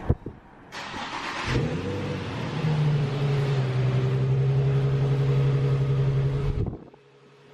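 Car engine started: a brief cranking, then it catches, flares up and settles into a steady idle. The sound cuts off abruptly near the end.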